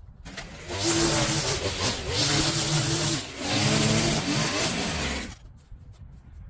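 Small engine of a garden power tool running at high revs with a short dip in the middle, then cutting off suddenly about five seconds in.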